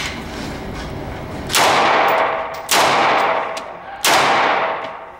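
Three pistol shots from a Walther PPQ 5-inch, fired one-handed about a second and a quarter apart. Each crack rings and fades for about a second in the echo of an indoor range.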